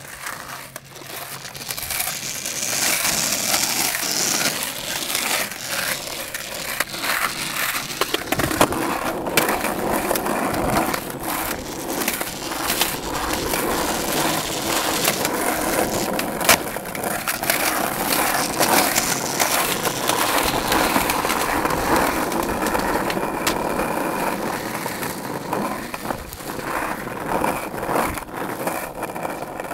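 Skateboard wheels rolling over rough asphalt: a continuous gritty rumble with many small clacks and knocks from the board, starting about a second in.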